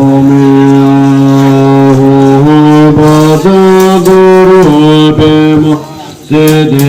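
Instrumental music: long held notes that step from pitch to pitch, dropping out briefly near the end.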